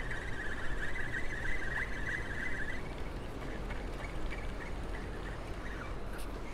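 Steady rush of water from the dam's spillway, with a high, even buzzing trill that stops about three seconds in.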